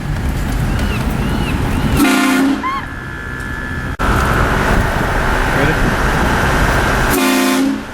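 Shocker Classic air train horn kit blasting twice, a first blast of about two seconds and a longer one of about three, very loud. Each blast ends in a brief clear chord before cutting off sharply.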